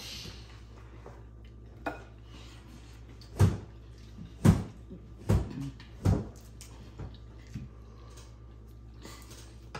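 Knocks and thumps on a wooden table as food and hands are set down on it, the loudest five bunched between about three and a half and six seconds in.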